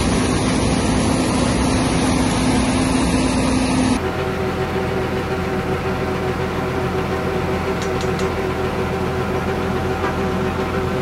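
Combine harvester running steadily as it harvests, a dense machine drone with one strong steady hum. It changes abruptly about four seconds in to a combine engine running steadily with several even humming tones while it unloads grain into a truck.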